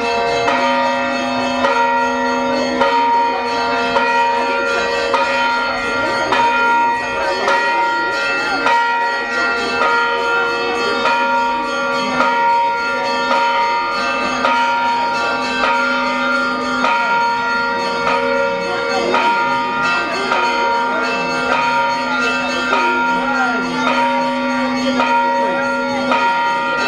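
Orthodox church bells ringing in a continuous peal: several bells at different pitches struck over and over, their tones overlapping, with a low bell sounding under the higher ones.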